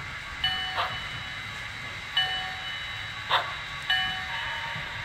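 Sound decoder of an HO-scale Proto 2000 CNJ 0-6-0 steam switcher ringing the locomotive bell, three strikes about 1.7 seconds apart, each dying away. Short hissing steam bursts come between the strikes, over a faint low rumble from the model running on the track.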